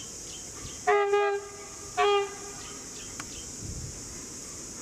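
Diesel locomotive horn sounding two short blasts about a second apart, each a steady chord-like tone.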